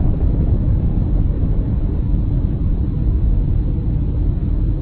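Deep, steady rumble of a nuclear explosion.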